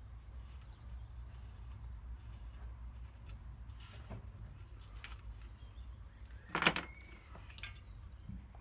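Diesel heater parts being handled as the circuit board is taken back off: scattered small clicks and knocks, one louder knock about six and a half seconds in, over a steady low hum.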